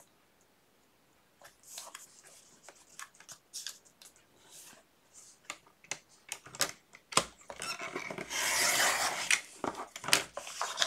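Paper being handled and lined up with light taps and rustles, then one long rasping cut through the paper about eight seconds in, followed by more handling clicks.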